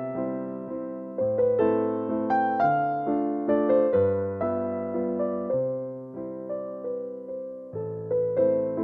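Background piano music: a slow melody of struck notes that ring and fade, over low bass notes changing every second or two.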